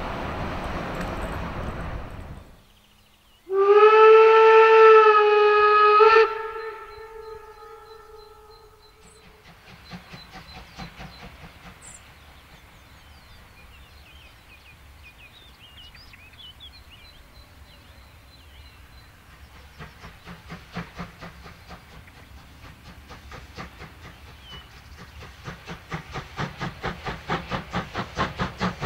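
Steam locomotive sounding one long whistle blast about three seconds in, the loudest sound here, after a stretch of running-train noise that cuts off. Its exhaust beats then come in from afar, faint at first and growing steadily louder toward the end, with a few birds chirping in between.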